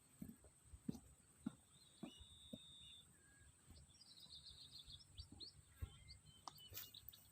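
Faint natural ambience: scattered short bird chirps, with a quick run of them about four seconds in, over a steady faint high-pitched tone and a few soft knocks.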